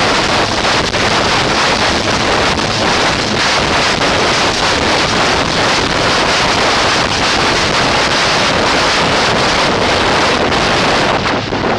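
Eurocopter AS332 Super Puma twin-turbine helicopter lifting off close by: loud, steady turbine and main-rotor noise, with the rotor downwash buffeting the microphone. Near the end the sound thins a little as it climbs away.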